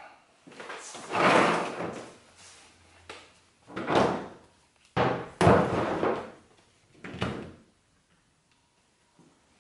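Knocks and clatter of two cordless impact wrenches and their batteries being handled and set down on a car's sheet-metal hood: four main loud thumps spread over about seven seconds, with lighter knocks between.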